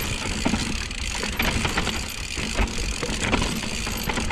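Giant XTC mountain bike rolling down a rough dirt trail, with continuous rattling and clicking from the bike and a low rumble from the tyres on the ground.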